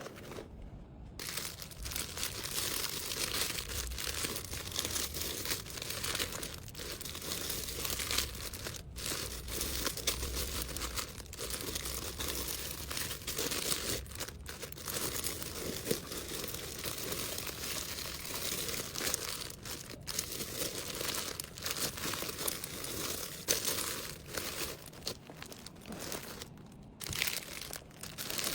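Packaging being handled, crinkling and rustling almost without a break; it starts about a second in.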